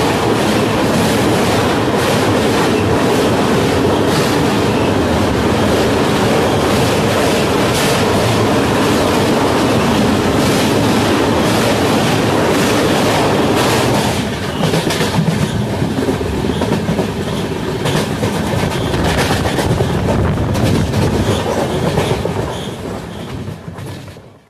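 Passenger coach wheels running at speed over the rails, heard from an open coach door: a loud, steady rumble with clickety-clack over the rail joints while crossing a steel truss bridge. About 14 seconds in the deep rumble thins. The sound fades out just before the end.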